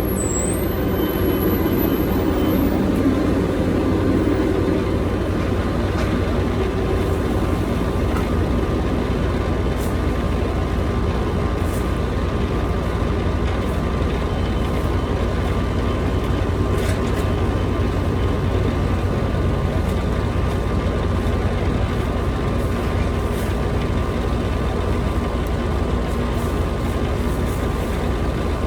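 Heavy equipment engine running steadily under load, a loud continuous low rumble with a faint steady whine above it.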